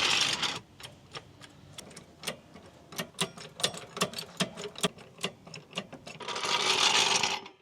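Ratcheting mechanism clicking irregularly, a few sharp clicks a second, as the truck is being jacked up. Two bursts of loud noise come right at the start and near the end.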